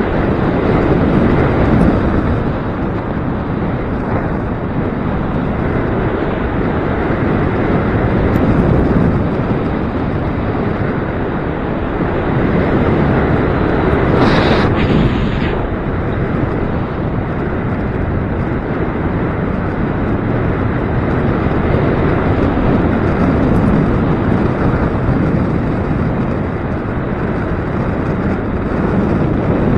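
Gusty wind buffeting the microphone: a steady rushing noise that swells and eases every few seconds, with a brief sharper hiss about halfway through.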